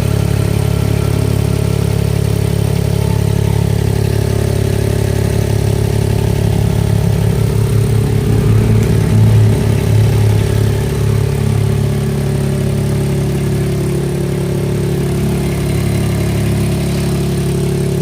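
Mahindra XUV 3XO MX1 idling with a tractor-like "tak tak" clatter, getting a little louder for a moment about eight to ten seconds in. The noise comes from the exhaust silencer, dented from scraping underneath, with a thin plate inside it gone loose.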